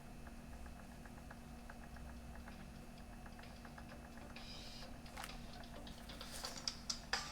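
Faint, irregular small clicks and ticks, with a short hiss about four and a half seconds in; the clicks come thicker near the end.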